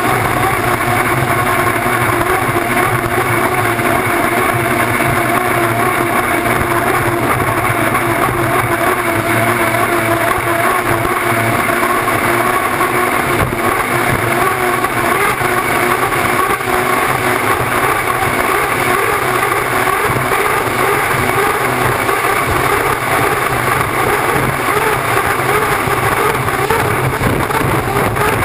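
Unlimited hydroplane's gas turbine engine running steadily at racing speed, heard from on board, with wind and water spray rushing past the hull.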